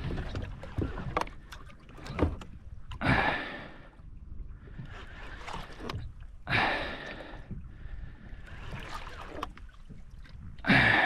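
A man breathing hard in three heavy exhales a few seconds apart, straining to reel up a heavy fish, over a steady low rumble of wind and water on the boat.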